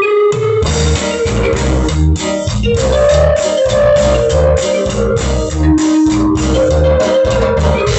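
Band music with a steady beat: a guitar melody over bass guitar and drums.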